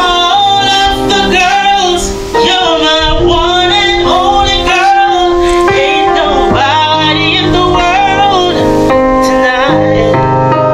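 Background music: a song with a singing voice over instrumental backing.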